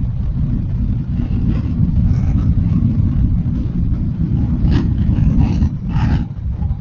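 Motorcycle being ridden at speed, heard from the rider's seat: a loud, steady low rumble of engine, tyres and wind.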